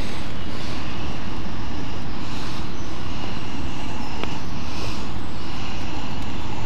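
Steady, loud rumbling noise on the microphone of the camera mounted on the e-bike, with faint high tones coming and going.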